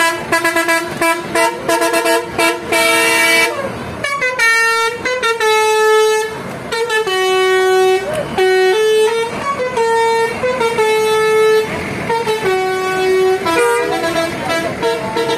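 Tour buses' multi-tone 'telolet' air horns playing a tune: a run of quick toots over the first few seconds, then longer held notes stepping between several pitches.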